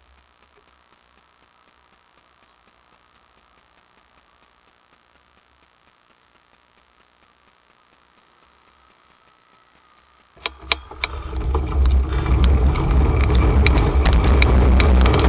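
Faint regular ticking, about four a second, then about ten seconds in a sudden loud rush of wind and road noise on a bicycle-mounted camera's microphone, with a few sharp clicks as it starts.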